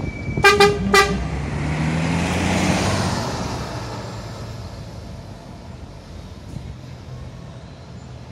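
Two short vehicle horn toots about half a second apart, then a rushing noise that swells and fades over a few seconds, above a steady low diesel engine drone.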